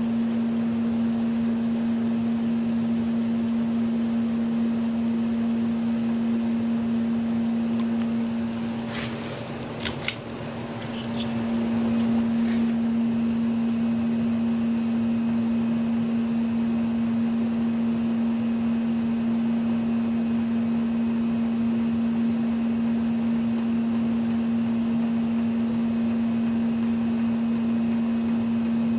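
1987 Lasko 3600L ceiling fan running with a steady motor hum. About a third of the way in there are a few sharp clicks and the hum briefly drops away, then comes back up to its steady level.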